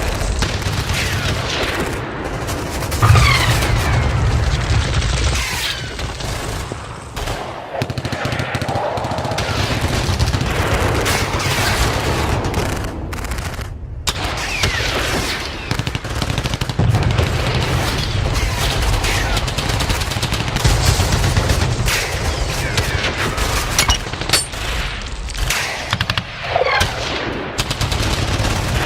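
Battle sound effect: continuous machine-gun and rifle fire, many overlapping shots with a low rumble beneath and a few falling whistles.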